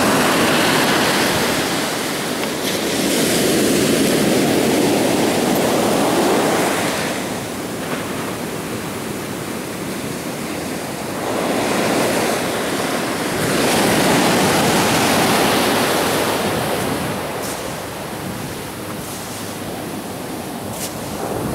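Ocean surf washing in and draining back, a continuous rush that swells and ebbs in slow surges, louder twice as waves come in. Wind buffets the microphone.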